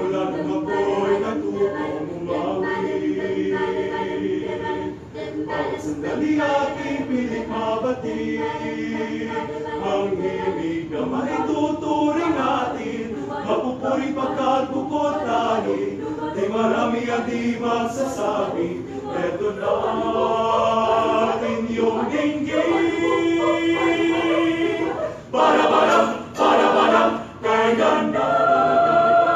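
University chorale singing a cappella, several voice parts holding chords in harmony; near the end it sings a few loud, short, detached chords.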